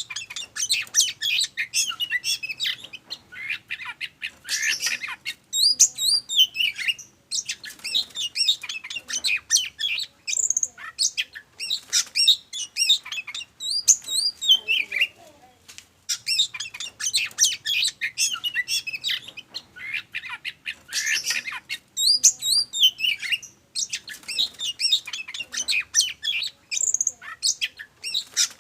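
Oriental magpie-robin (kacer) in full, excited song: a fast, varied stream of high chirps, whistles and harsh squawking notes, delivered in long phrases broken by brief pauses.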